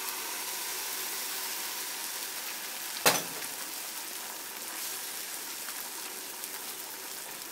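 Beaten egg with chopped onion sizzling steadily in a hot oiled frying pan, just poured in. One sharp knock about three seconds in.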